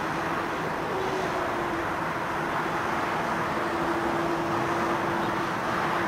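Airbus A310 airliner's jet engines running as it taxis: a steady jet rush with a constant droning tone under it.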